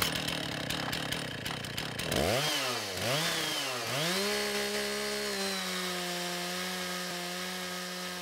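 Petrol chainsaw ripping lengthwise through a log in a chainsaw mill. About two and a half seconds in, the engine pitch dips and recovers twice, then it holds a steady high pitch through the cut.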